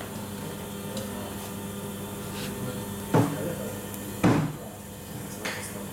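Okuma servo drive test bench running with a steady electrical hum, broken by two sharp clunks about a second apart.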